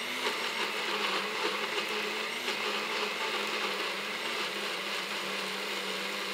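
A personal bullet-style blender's motor switching on suddenly and running steadily, its blades whirring through fermented scotch bonnet chilli mash and coriander as it purées them into a smooth hot sauce.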